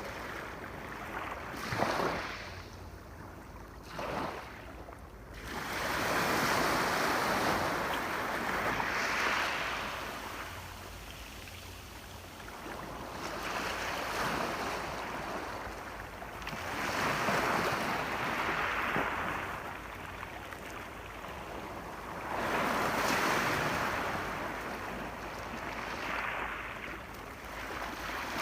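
Ocean surf washing onto a shore: two short splashes in the first few seconds, then slow swells that rise and recede about every five or six seconds.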